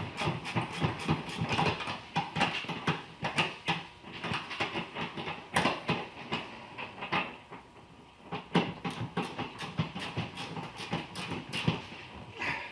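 Hand tools clicking and clanking on a Triumph TR6 seat's mounting bolts as the seat is unbolted, in runs of rapid clicks with a brief lull about eight seconds in.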